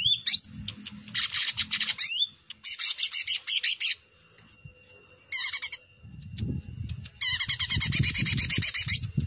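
A caged cucak ranting leafbird singing in bursts of rapid, high, chattering notes, the varied song that bird keepers call "full isian". The longest burst comes near the end. A low rumble runs beneath.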